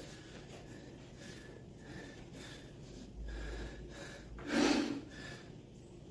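A man breathing hard in short noisy exhales while flexing, with one loud forceful exhale about four and a half seconds in.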